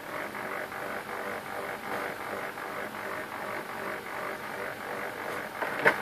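HP LaserJet P1102 laser printer's drive motor and gear train starting up and running with a steady whirr, with a sharp click near the end.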